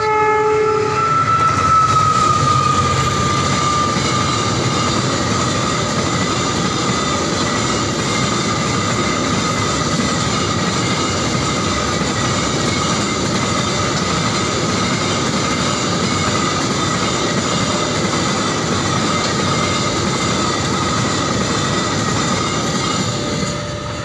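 Freight train of flat wagons rolling past at close range: a loud, steady rumble and rattle of wheels on rail. Over it runs a steady high wheel squeal that sags slightly in pitch within the first few seconds.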